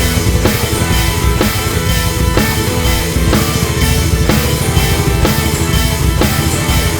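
Background rock music with a steady driving drum beat, about two hits a second, and guitars.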